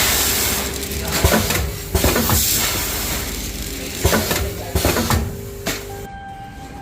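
Machinery running with a steady hiss and a held tone, with irregular clattering knocks, cutting off abruptly about six seconds in.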